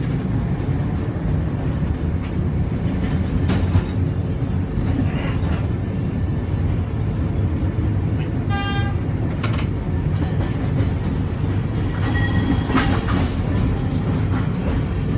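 Nagasaki streetcar running, a steady low rumble of the tram's motor and wheels on the rails heard from inside the car. A short pulsing tone sounds about nine seconds in, and a high-pitched squeal rings around twelve to thirteen seconds in.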